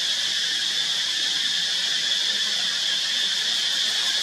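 Steady, unbroken high-pitched drone of an insect chorus, such as cicadas.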